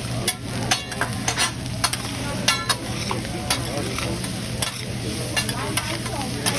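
Food sizzling on a hibachi griddle, with sharp clicks and scrapes of metal spatulas on the hot steel a dozen or so times.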